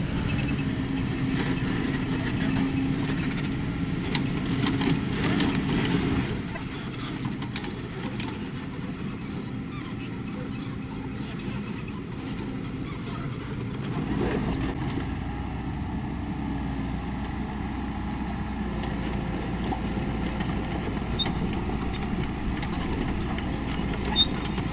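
Kobelco SK75 excavator's diesel engine running steadily while the machine works. The engine is louder for the first six seconds or so, then eases.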